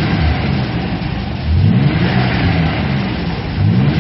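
Nissan 300Z twin turbo's 3.0-litre V6 pulling while driving, heard from inside the cabin, its revs climbing in surges about a second and a half in and again near the end.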